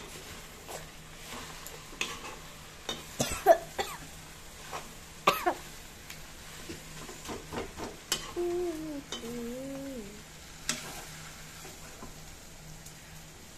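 Spatula stirring and scraping in a kadai while chopped ginger, garlic and onion sizzle in oil, with a few sharp coughs in the first half; the cook's coughing comes from the smoke of the charred dried chillies.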